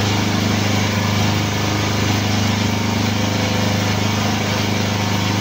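Hydraulic tyre press's power unit running with a steady, unchanging hum while the ram forces a solid forklift tyre down onto its rim.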